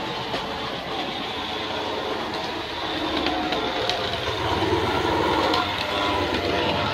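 Model railway locomotive, a Class 42 Warship diesel, running along the track hauling a rake of coaches: a steady electric-motor whirr with the wheels rattling and ticking over the rails. It gets louder through the middle as the train passes close.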